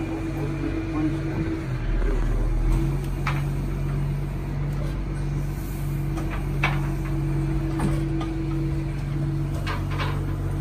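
Boom crane's engine and hydraulics running with a steady low hum as it lowers a boat engine on its wire rope, with a few light metal clinks.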